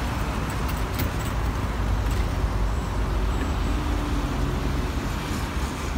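Steady road traffic: cars and trucks driving past with a constant engine rumble and tyre noise.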